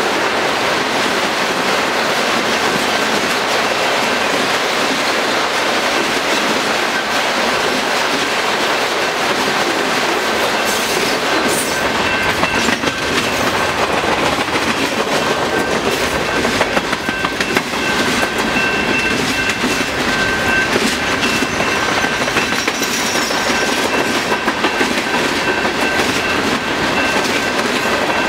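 Freight cars of a long train rolling past at speed: a steady rumble with the clickety-clack of wheels over rail joints.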